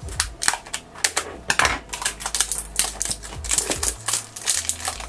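Plastic shrink wrap on a small cardboard blind box crackling in rapid, irregular clicks as it is cut with scissors and handled.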